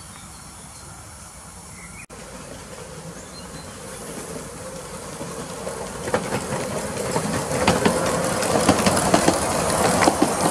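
A miniature steam locomotive hauling passenger cars runs in and passes close. Its sound grows steadily louder from about four seconds in, with quick, irregular clicking and clattering from its wheels and running gear as it nears.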